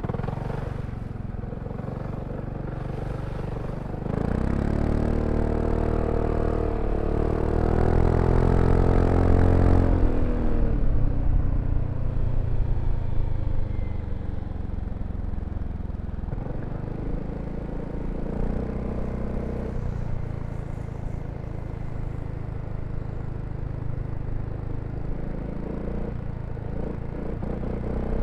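BMW C400X scooter's single-cylinder engine and exhaust while riding: running steadily, then from about four seconds in accelerating with the engine note climbing, easing off around ten seconds in and settling back to a steady, lower cruise.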